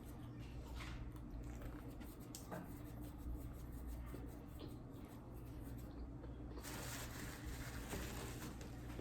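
Quiet eating sounds: wet chewing and mouth noises with scattered small clicks over a low steady hum. About two-thirds of the way in there is a fuller stretch of noise lasting about two seconds.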